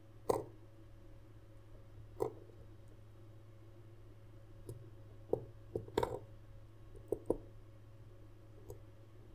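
Scattered small clicks and taps as a watch movement is handled and set into a plastic movement holder on a bench mat: about nine irregular clicks, the sharpest near the start and about six seconds in, over a faint steady low hum.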